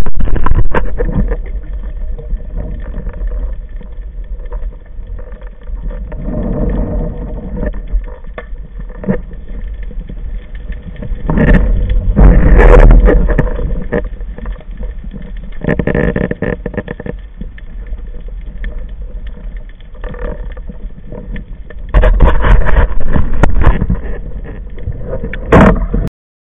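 Muffled underwater water noise through an action camera's waterproof housing as a spearfisherman swims: a steady low rumble with several louder rushing surges of water. It cuts off abruptly near the end.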